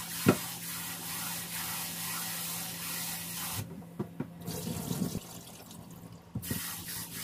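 Kitchen tap spraying into a clay pot as rice is rinsed and swirled by hand, with one sharp knock about a third of a second in. A little past halfway the spray stops, leaving a few light knocks and water being poured off the rice, and the spray comes back on near the end.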